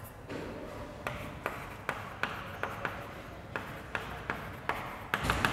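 Chalk writing on a chalkboard: a string of sharp taps and short scrapes as letters are formed, about two a second, coming in a quick cluster near the end.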